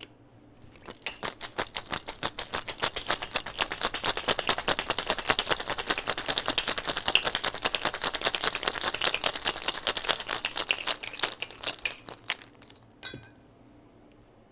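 Ice rattling hard inside a stainless steel cocktail shaker being shaken, a fast, even clatter for about eleven seconds. It stops, and a moment later the metal shaker is set down on the bar with a single knock.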